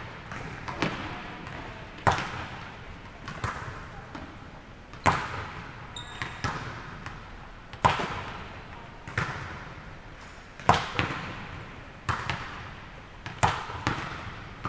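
A volleyball being struck back and forth between two players. There is a sharp smack every second or so, and each one echoes around a large gym.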